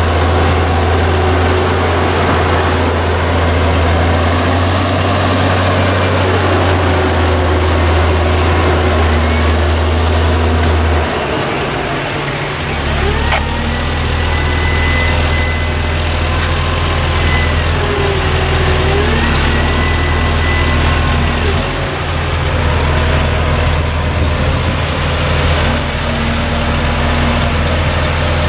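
Heavy diesel engine of a mobile crane running steadily while its hook is hoisted. Its note changes about eleven seconds in and again a little past twenty seconds.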